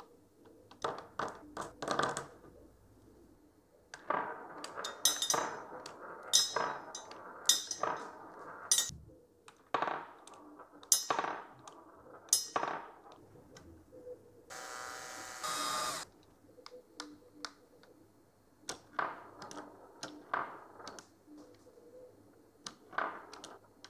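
A hand-worked 3D-printed plastic marble selector gate: irregular clicks and knocks of its lever and gates, with steel marbles clinking against the plastic. A little past the middle a marble rolls and rattles for about a second and a half.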